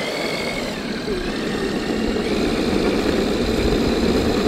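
Traxxas X-Maxx RC truck pushing a rider on a skateboard along asphalt: a steady rolling rumble of wheels on the road that grows louder as they pick up speed.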